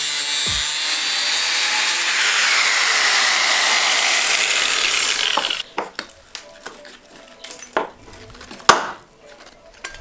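Power tool cutting through a steel support brace in a van floor, a loud high-pitched grinding whose pitch sags and recovers under load. It stops about halfway through, and is followed by scattered knocks and one loud bang near the end.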